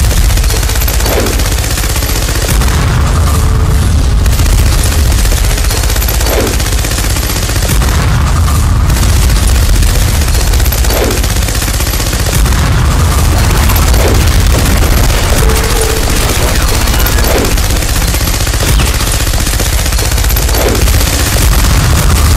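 Film action-scene soundtrack of loud, continuous gunfire and explosions, with a short falling tone every few seconds.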